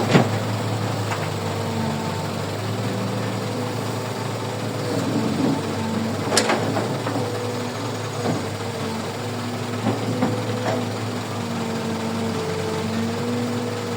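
Heavy diesel engine of earthmoving machinery running steadily, with a few sharp metallic knocks. The loudest knock comes about six seconds in.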